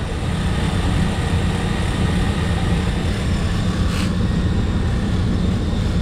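Wire wheel brush spinning on a drill, scrubbing the old gasket residue off the pump's mounting flange to leave a smooth surface for the new gasket. It runs with a steady whine over a continuous low rumble, with a single sharp click about four seconds in.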